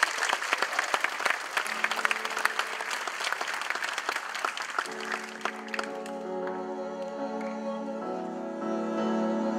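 Audience applauding, the clapping fading out after about five or six seconds. Under it a low held note begins about two seconds in, and from about five seconds slow, sustained music with bowed strings takes over.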